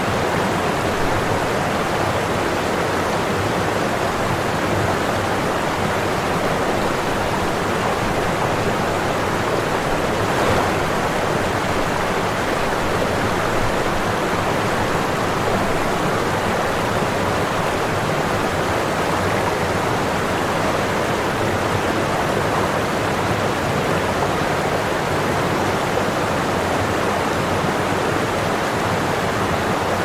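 Waterfall pouring steadily into a pool: an unbroken, even rush of falling water, strongest in the middle range, with no changes in level.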